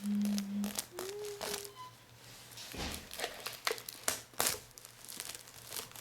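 Paper and plastic being peeled and crinkled, a series of short scratchy rustling and tearing sounds. A person hums a low note in the first moment and a higher short note about a second in.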